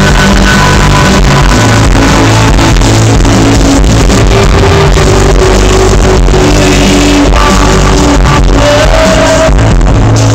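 Rock band playing live, heard from within the crowd. The phone recording runs at the top of its range and sounds distorted.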